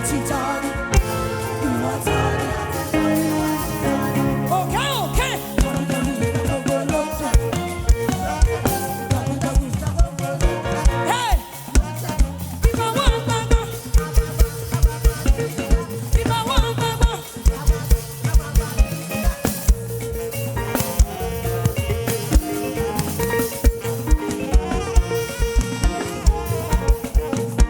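Live gospel worship band playing an instrumental passage, with the drum kit keeping a steady beat under bass and sustained keyboard tones.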